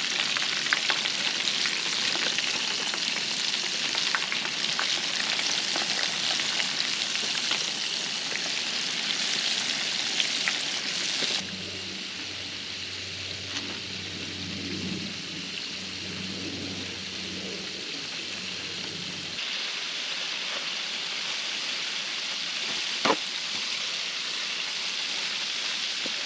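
Walleye pieces wrapped in chicken skin and battered, deep-frying in hot oil: a dense, steady sizzle. About halfway through the sizzle drops off and a steady low hum is heard for several seconds, then the sizzle comes back.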